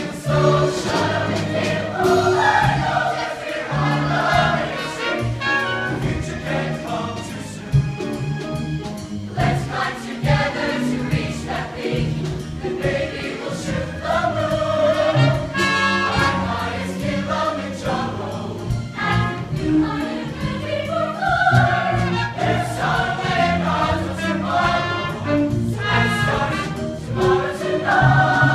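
Mixed show choir singing an upbeat number in full voice over a live band, with a steady bass line and a regular drum beat.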